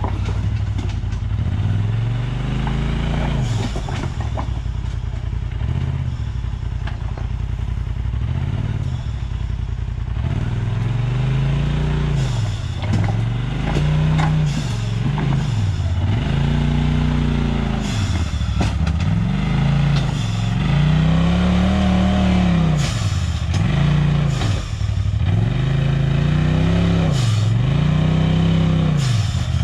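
Off-road vehicle engine being revved up and down again and again while the vehicle is driven hard at a rock climb. It runs fairly steadily at first, then from about a third of the way in surges and drops roughly every two seconds, with occasional sharp knocks.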